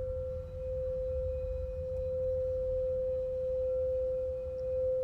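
Crystal singing bowl ringing one steady, sustained pure tone, with fainter higher overtones above it.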